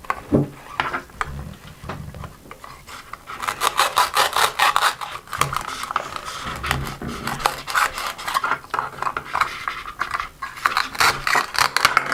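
Velcro tearing apart as a plastic toy knife cuts through velcro-joined toy fruits and vegetables. Each cut is a rapid rasping rip, repeated several times and heaviest from about three seconds in, with a few light plastic knocks near the start.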